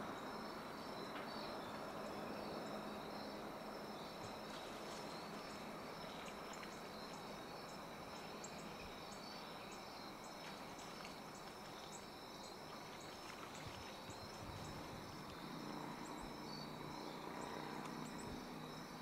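Insects trilling steadily in a chorus at two high pitches, with a regular faint ticking of about two or three a second on top, over a low steady hiss.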